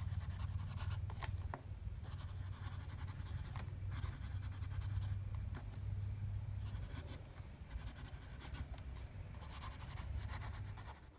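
A TWSBI Eco-T fountain pen's extra-fine steel nib writing on smooth 90gsm Clairefontaine paper: a light scratching of the nib, with a hint of feedback, in short strokes with small gaps between letters and words. A low, steady hum runs underneath.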